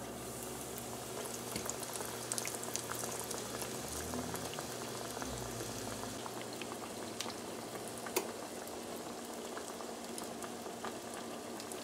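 Egg-and-flour-coated fish cakes frying in hot vegetable oil: a steady sizzle with many small scattered pops and crackles, one sharper pop about eight seconds in.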